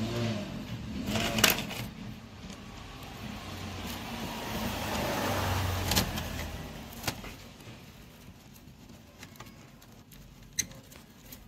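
Small screwdriver tightening the mounting screws of a Bluetooth MP3 module in a cassette player's metal panel: scattered sharp metal clicks and scrapes. In the middle a broad rushing noise swells and fades over about four seconds, like a passing vehicle.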